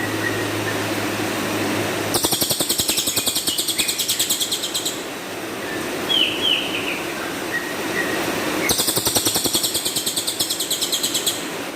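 Cililin songbird singing two long, harsh rapid-fire trills of high notes, about ten a second, each lasting close to three seconds. Between the trills come a few short, downward-slurred chirps. This is the rough 'tembakan' (shooting) song that bird keepers use as training material.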